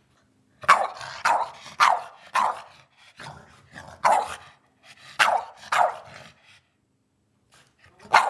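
Boston terrier barking in a string of sharp barks about half a second apart, then a short pause and one more bark near the end: demand barking for its dinner.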